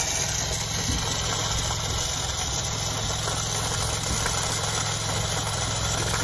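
Philips espresso machine with a LatteGo carafe frothing milk into a glass: a steady pump buzz with a hiss of airy milk froth pouring.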